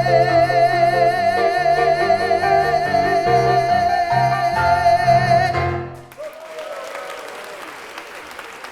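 A singer holds the song's final note with a wide vibrato over instrumental accompaniment, and the music stops about six seconds in. Audience applause follows.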